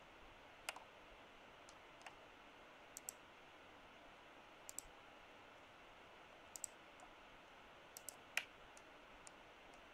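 Computer mouse clicking, about a dozen short clicks spread out with several coming in quick pairs, the loudest a little over eight seconds in, as faces and edges are picked on screen; faint steady hiss between them.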